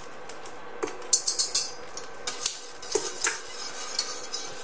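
Kitchen utensils and dishes clinking: a run of separate light taps and knocks, with a quick cluster of clinks about a second in.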